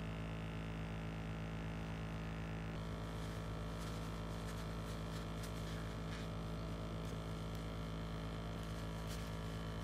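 KKMoon mini airbrush compressor's motor running steadily with the airbrush trigger released, a low even drone. Faint rustles and light ticks of a tissue wiping out the airbrush's paint cup from about three seconds in.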